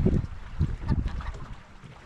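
Wind buffeting the microphone in uneven low gusts that ease off near the end.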